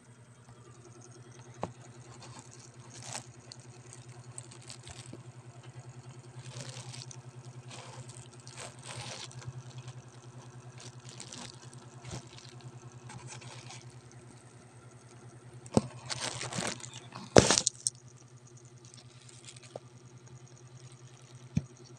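A metal fork stirring and turning pieces of fish in a vinegar marinade in a plastic basin: soft wet sloshing and squelching, with occasional sharp clicks of the fork against the basin, the loudest about three-quarters of the way through. A steady low hum runs underneath.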